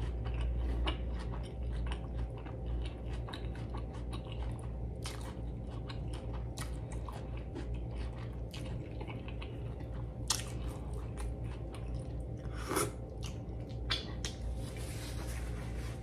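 Wet, close-miked chewing of a big mouthful of smash burger, with many small mouth clicks and smacks.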